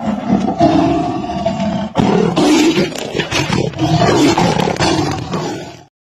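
Tiger roaring in a long run of deep roars, with a short break about two seconds in, cutting off suddenly just before the end.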